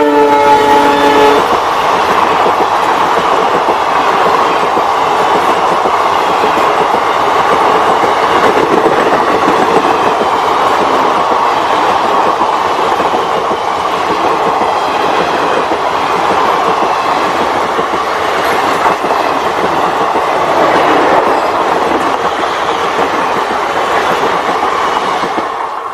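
A WDG-4D diesel locomotive's horn sounding briefly at the start, then the passenger train running past at speed: a loud, steady rush and clatter of coach wheels on the rails, dropping away near the end.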